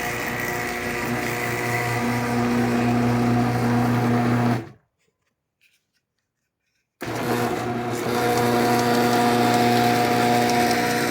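Electric garage door opener motor running with a steady hum. It cuts to silence for about two seconds midway, then runs again.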